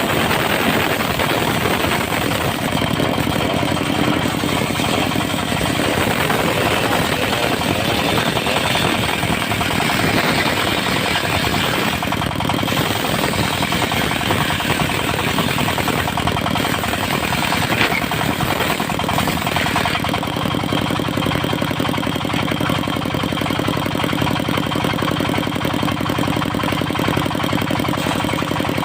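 Diesel engine of a portable circular sawmill running steadily, with a rougher, noisier sound for the first two-thirds that evens out near the end.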